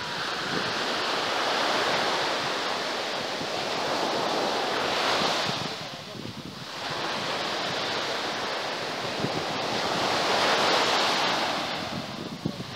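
Small waves breaking and washing up a sandy shore, the surf swelling and easing, dipping about halfway through and again near the end, with wind buffeting the microphone.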